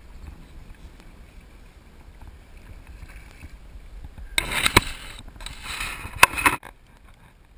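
Largemouth bass thrashing in a landing net at the water's surface: splashing starts about four seconds in and comes in two bursts over about two seconds, with a couple of sharp knocks among them.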